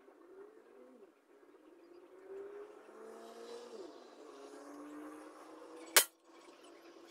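A 5.5 mm NAJA 2.0 air rifle firing a single shot: one sharp crack about six seconds in. Faint low warbling tones come before it.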